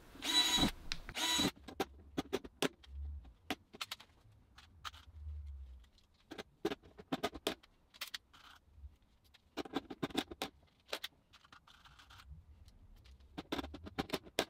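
A loud noisy burst lasting about a second and a half at the start, then scattered clicks, taps and rattles of hand tools being handled and a hand rivet gun being worked on a plastic storage box, bunching near the end.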